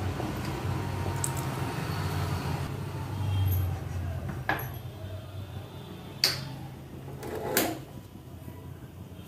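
Cooking oil poured in a thin stream into an unglazed clay pot over a steady low hum. Later come three separate sharp clicks and knocks, about a second and a half apart.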